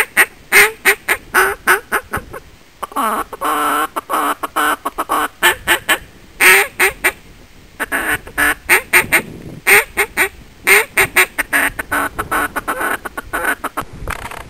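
Hand-blown duck call sounding strings of short quacks, with a faster rolling chuckle run about three to five seconds in: soft finishing calls meant to bring wary ducks on into the decoys.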